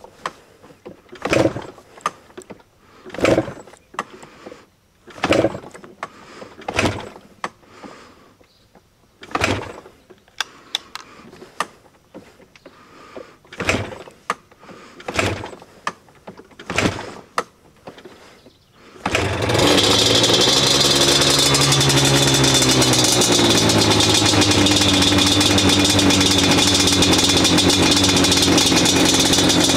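Yamaha Banshee's parallel-twin two-stroke engine being kick-started: repeated kicks, about one every second or two, before it catches about two-thirds of the way through. It then runs loud and steady, its revs dipping briefly before settling, on its first start after a carburetor rebuild and sync.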